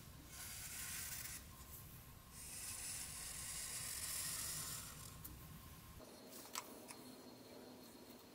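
Black marker scratching along a planed oak board while tracing around a spoon template, in two long strokes. A single sharp click follows about six and a half seconds in.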